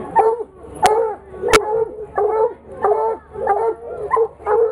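Several coonhounds barking and bawling treed at the finish pole, a steady run of short pitched calls about two a second. Two sharp knocks cut through about a second in and again half a second later.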